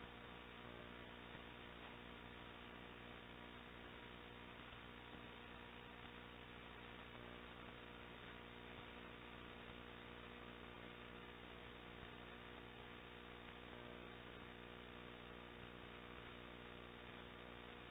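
Near silence: a faint, steady mains hum with light hiss.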